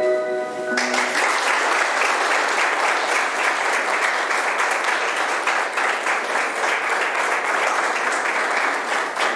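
A choir's last held chord ends under a second in, and the audience breaks into steady applause.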